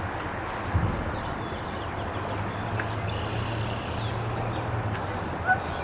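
Open-air ambience with small birds chirping now and then over a steady background hiss and a low hum in the middle. Two brief thumps, about a second in and near the end, are the loudest sounds.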